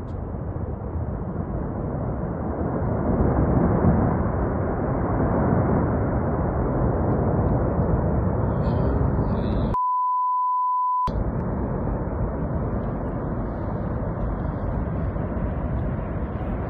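Steady rushing rumble of an ice and snow avalanche sweeping down the mountainside, loudest about four seconds in. About ten seconds in, all sound is cut for over a second and replaced by a steady censor bleep.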